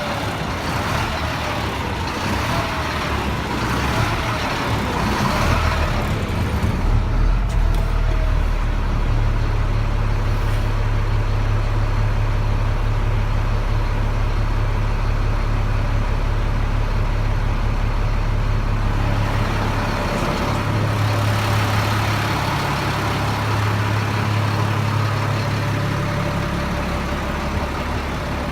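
Idling diesel engine of a 1999 Freightliner truck, its note shifting in pitch a few times, about seven, nine and twenty seconds in. This is the surging that the owner puts down to a bad fuel pressure sensor.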